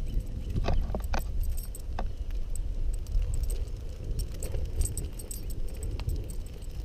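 A bicycle ridden at a slow pace with a dog leash rig attached: light metallic jingling and rattling, with a few sharper clicks about a second in and at two seconds, over a steady low rumble of wind and road noise on the bike-mounted microphone.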